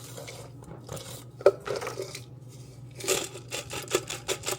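Spice shaker of seasoning being shaken over meat: a knock about a second and a half in, then a fast run of rattling shakes in the second half, over a low steady hum.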